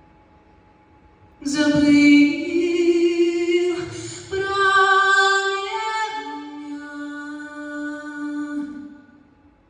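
A woman singing solo in slow, long held notes; her voice comes in about a second and a half in and fades away near the end.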